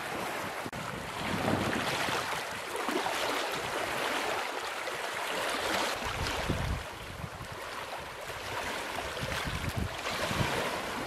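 Small lake waves lapping and washing over a rocky, pebbly shore, swelling and easing every second or two, with wind buffeting the microphone about six seconds in.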